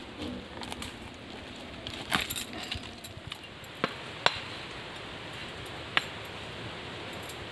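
A machete blade striking and trimming a freshly peeled strip of sal bark: a few sharp knocks, a small cluster about two seconds in and single ones near four and six seconds, over steady forest ambience.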